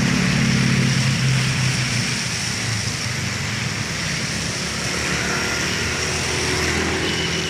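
Road traffic passing on a wet road: a car's engine hum is loudest at the start and fades as it goes by, then small motorcycle engines pass a few seconds later, all over a steady hiss of tyres on the wet surface.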